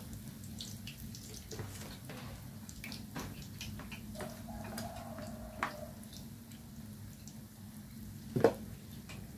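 Chopsticks and spoons clicking against bowls and dishes during a meal: scattered light clicks over a steady low hum, with one louder clatter of dishes near the end.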